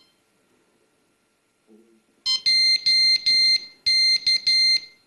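Electronic beeping from a CADD-Prizm ambulatory infusion pump during its power-on self-test: two quick runs of three shrill beeps, the second run starting about a second and a half after the first.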